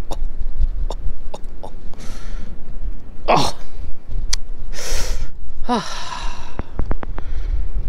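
Wind buffeting the microphone in a steady low rumble, with a few sharp clicks, short hissing bursts, and two brief pitched cries, one sliding up about three seconds in and one sliding down near six seconds.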